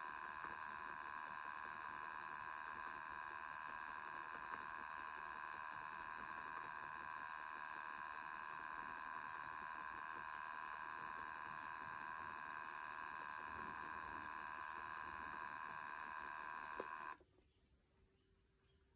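Electric Eel Wheel Nano 2.0 electric spinning wheel's motor and flyer running fast while spinning yarn: a steady, noisy whine of several high tones. It cuts off suddenly a couple of seconds before the end.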